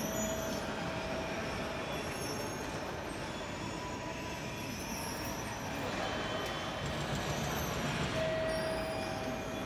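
Motorised steel roller shutter lowering over a station ticket-gate entrance, its motor and slats running with a steady mechanical noise. A faint thin tone sounds near the start and again near the end.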